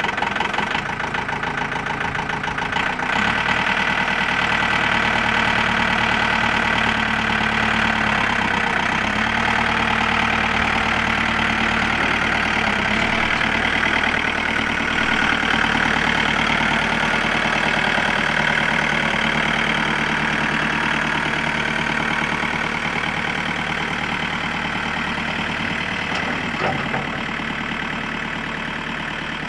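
John Deere 4520 compact utility tractor's four-cylinder turbo diesel engine running, getting louder about three seconds in, with its engine note shifting a few times.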